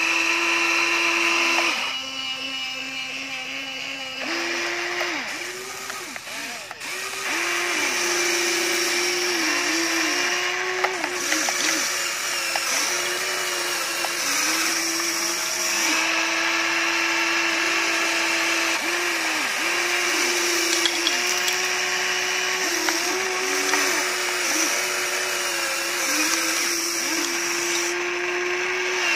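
Electric motors of a Huina radio-controlled toy excavator whining as the boom, arm and bucket move. The pitch holds steady, then dips and recovers over and over as the motors take load and change direction, with a few light clicks.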